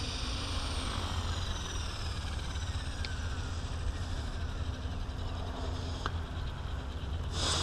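Align T-Rex 550E electric RC helicopter hovering low, its rotor blades whirring over the high whine of the electric motor, which slides down a little in pitch in the first few seconds. A low rumble runs underneath, and a short burst of hiss comes near the end.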